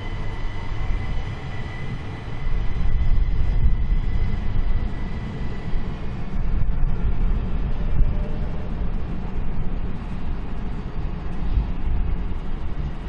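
SNCB electric trains running through the station: a steady low rumble of wheels and running gear that swells a few seconds in. A thin high whine is heard over it at first and fades after about three seconds.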